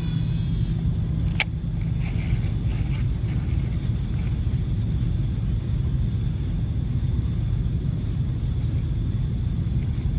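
Steady low rumble with a single sharp click about a second and a half in.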